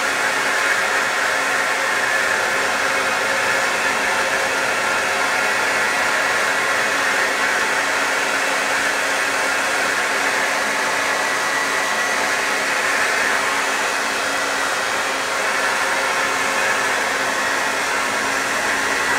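Handheld hair dryer blowing steadily at close range onto a window screen, a constant rushing hiss with a faint steady motor hum, heating a heat-activated screen patch to bond it.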